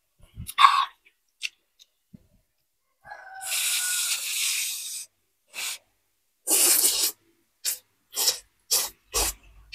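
A person slurping spicy noodles in broth: one long slurp about three seconds in, then a string of short, quick slurps and sucks toward the end.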